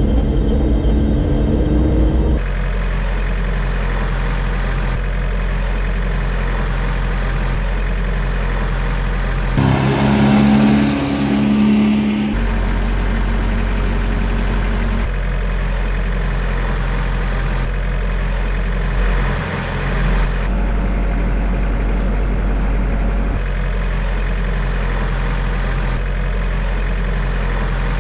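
Heavy vehicle engine running steadily, its sound changing abruptly every few seconds as takes are joined, with a higher, steadier engine note for a few seconds around ten seconds in.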